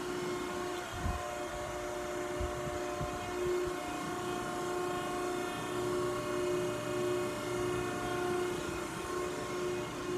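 Cincinnati 90CBX6 CNC hydraulic press brake running under power: a steady hum with a faintly pulsing tone, and two low thumps in the first few seconds.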